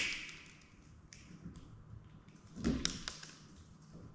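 Wire strippers working the individual wires in a wall box: a sharp snip at the start, then a few light clicks and a short rustle of the wires being handled.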